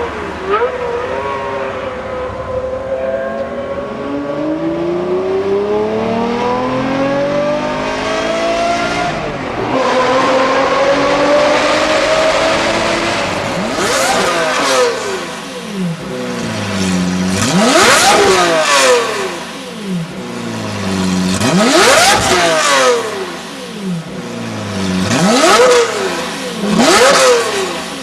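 Lamborghini engine through a Kreissieg valved aftermarket exhaust, pulling up in pitch to a gear change about nine seconds in and holding a high note. From about fourteen seconds it gives five sharp revs, each rising and falling quickly.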